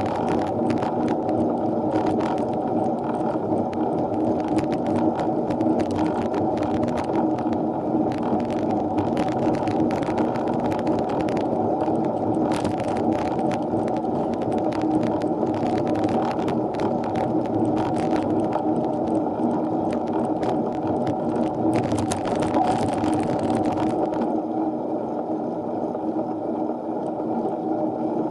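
Riding noise on a bicycle-mounted action camera during a climb: a steady muffled rumble with frequent sharp clicks and rattles, which stop about 24 seconds in.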